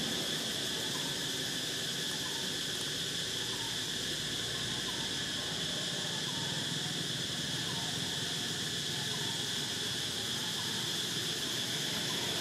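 Steady insect chorus, a continuous high-pitched drone that holds at one pitch without a break.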